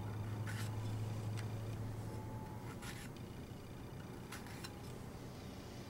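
Thin Global GS-1 utility knife cutting into a red pepper on a wooden cutting board: about five short, crisp cuts through the skin, spaced a second or so apart.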